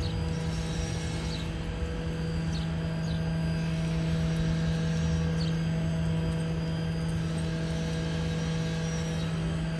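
A steady low hum that does not change, over outdoor street background noise, with a few short high rising chirps scattered through.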